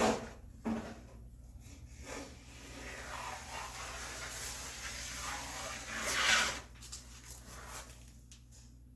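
Hand plane being pushed along a wooden board: a couple of knocks, then two long rasping strokes of the iron through the wood, the second one louder.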